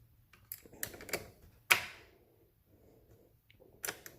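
A wrench tightening battery terminal clamps: a few irregular clicks and knocks, one sharper than the rest near the middle and a small cluster near the end.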